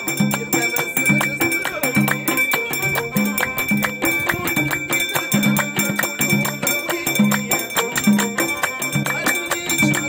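Moroccan Amazigh folk music: a skin-topped lute (lotar) plucks a short low phrase over and over, while a frame drum and hand clapping keep a steady beat.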